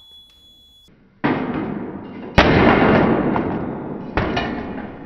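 Pointed striker of a helmet penetration-test rig dropping onto a counterfeit AGV motorcycle helmet: a sudden clatter about a second in, then a sharp loud bang about two and a half seconds in, and another knock near four seconds. The striker punches straight through the fake helmet's shell.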